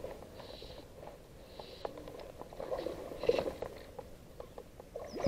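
A bird calling softly about once a second, with faint clicks and a short rustle of handling about three seconds in.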